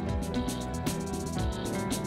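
Background music: sustained instrumental notes over a steady percussive beat.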